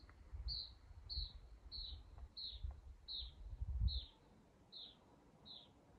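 A bird calling a steady series of short, high, downslurred notes, about one every two-thirds of a second, about nine in all. Under it runs an uneven low rumble on the microphone, which is the loudest part of the sound.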